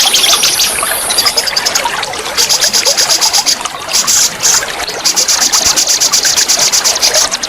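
Songbird singing fast, high, rattling trills in bursts of a second or more, about ten notes a second, over the steady rush of a waterfall and flowing water.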